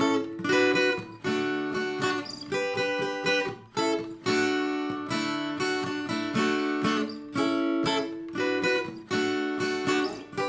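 Acoustic guitar in standard tuning strumming a riff of D-based chord shapes, played through twice back to back: short groups of strummed chords broken by brief stops.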